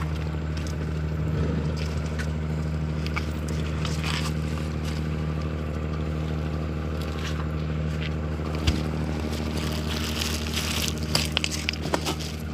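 Boat engine running steadily at a constant low drone. A few knocks and clatters come near the end.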